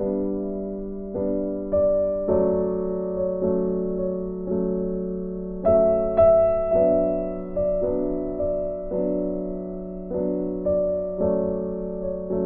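Gentle background piano music: single notes and chords struck every second or so, each ringing and fading before the next.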